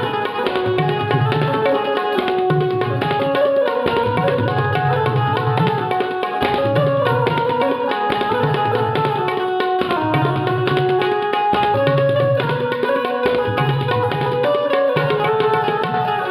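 Tabla playing a dense rhythm with deep, resonant bass-drum strokes, under a melody of held notes on a benjo, the Indian keyed banjo (bulbul tarang).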